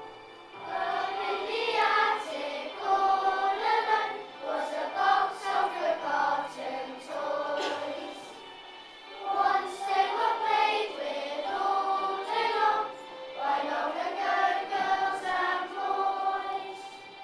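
Children's choir singing a song with musical accompaniment, in sung phrases with a brief pause about eight seconds in.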